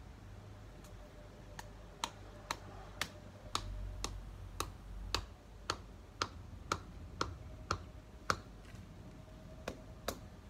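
A garden stake being tapped into the soil with a small hand-held block: a run of sharp knocks about two a second, pausing about eight seconds in, then two more.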